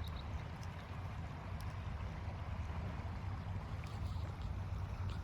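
Steady outdoor background noise with a low rumble, and a few faint ticks.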